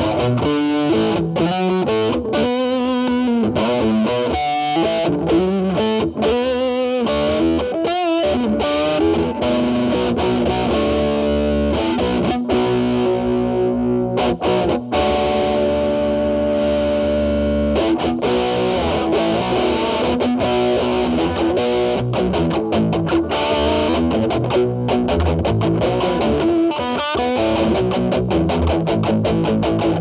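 Electric guitar with humbucking pickups played through a metal distortion pedal into a Marshall Valvestate amp's clean channel, with the guitar's volume rolled back so the distortion cleans up. Picked notes and chords, with one long held chord about halfway through, then busier playing.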